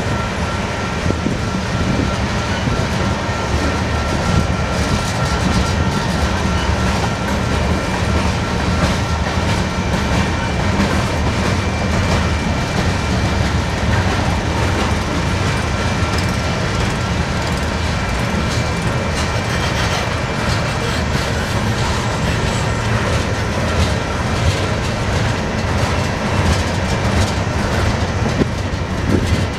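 Freight cars of a Union Pacific manifest train rolling past steadily, with a low rumble and the clickety-clack of wheels over rail joints. A faint high steady ringing from the wheels fades out about halfway through.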